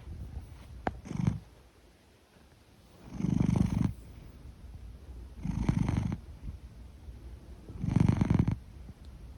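A big house cat's rumbling, snore-like breaths: three in a row, about two and a half seconds apart, each buzzing for just under a second with quieter breathing between.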